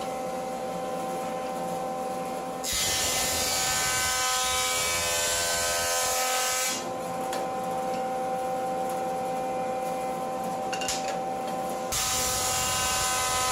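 Jointer motor running steadily with a whine while an oak board is fed across the cutterhead: a louder rushing cut starts about three seconds in and lasts about four seconds, and a second pass begins near the end.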